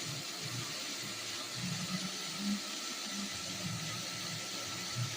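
Steady background hiss with no speech.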